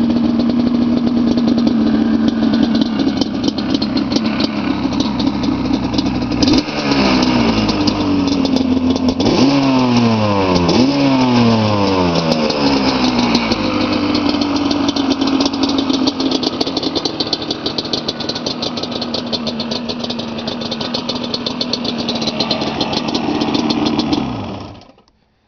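1997 Yamaha Banshee's twin-cylinder two-stroke engine with old-style FMF Gold pipes, not real loud, idling and revved a few times in rising and falling blips about a third of the way in. It settles back to a steady idle and cuts off near the end.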